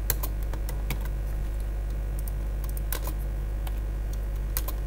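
Typing on a computer keyboard: irregular short runs of key clicks over a steady low hum.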